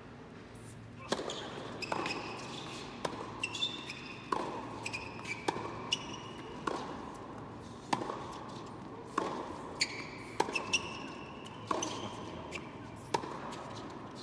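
Tennis rally on an indoor hard court: a serve about a second in, then racket strikes and ball bounces about once a second, with short high squeaks from players' shoes on the court between the hits.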